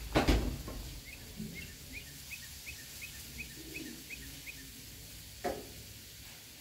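A bird calling a quick, even series of about ten short rising chirps, roughly three a second. A sharp knock, the loudest sound, comes just at the start, and a smaller knock about five and a half seconds in.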